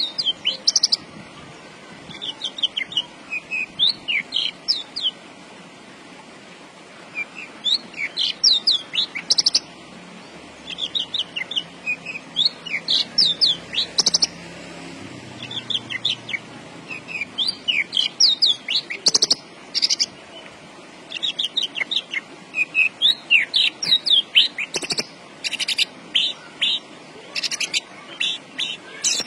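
Horsfield's bush lark (branjangan) singing: rapid, high chirping phrases of a few seconds each, separated by short pauses.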